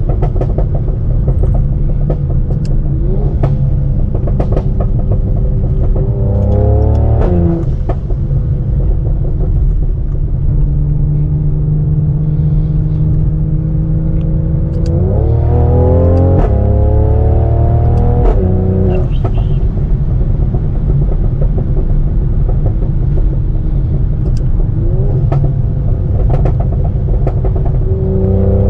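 Tuned Mercedes-AMG C43's twin-turbo V6 accelerating through the gears, its pitch climbing and then dropping sharply at each upshift, several times. Sharp exhaust crackles and pops are scattered through it.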